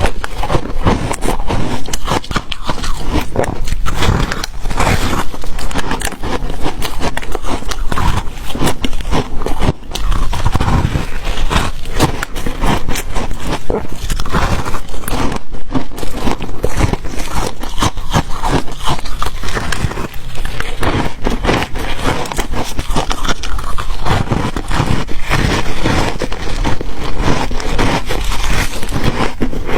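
Close-miked biting and chewing of crunchy ice, a dense run of irregular cracks and crunches.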